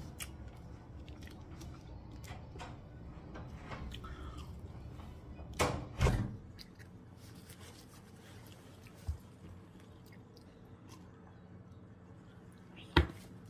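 A man chewing French fries close to the microphone. The chewing is broken by two louder bursts of noise about six seconds in and a sharp knock near the end.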